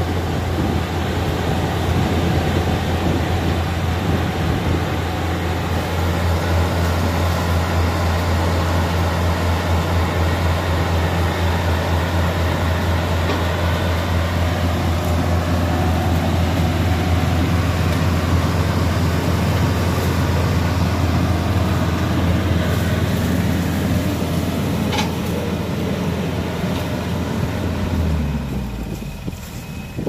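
Yanmar AW82V combine harvester's diesel engine running steadily as the tracked machine backs down onto a steel barge. Near the end the engine note falls in pitch and fades as it winds down.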